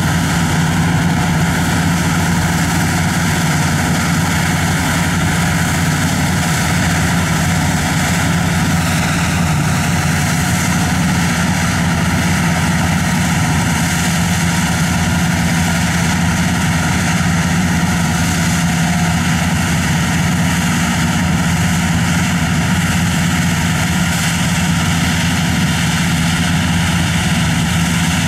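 Don-1500 combine harvester running at work, its diesel engine and threshing machinery making a loud, steady drone that holds unchanged throughout.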